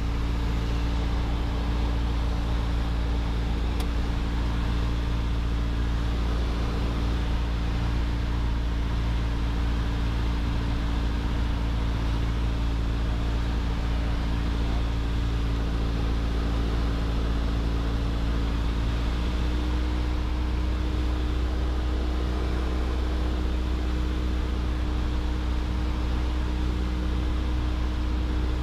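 Piper PA-28 Archer's four-cylinder engine and propeller running steadily, heard as a constant drone inside the cabin, with a slight rise in pitch about two-thirds of the way through.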